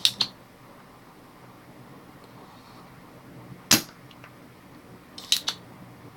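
Spring-loaded solder sucker (desoldering pump) snapping as it fires, sucking molten solder out of a DC jack's through-holes on a laptop motherboard. Five sharp snaps come in three groups: a quick double snap at the start, a single one about halfway through and another quick double near the end.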